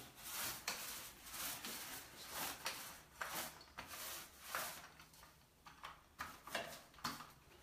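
Small paint roller loaded with wet paint rolling over glazed ceramic wall tiles, a faint sticky hiss repeated with each stroke, about two strokes a second. It is laying the first, primer-like coat of paint on the tiles.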